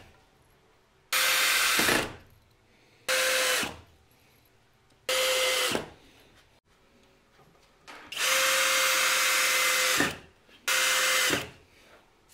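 Cordless drill driving screws into 2x4 framing lumber in five short runs. Each run is a steady whine that winds down in pitch when the trigger is let go; the longest lasts about two seconds.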